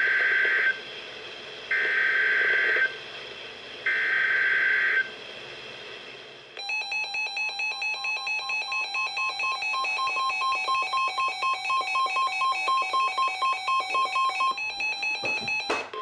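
NOAA Weather Radio SAME alert header: three data bursts of about a second each, a harsh warbling modem-like buzz, a second apart. Then the weather radios' alarms go off, fast pulsing alert beeps over the steady 1050 Hz warning tone, for about eight seconds before cutting off.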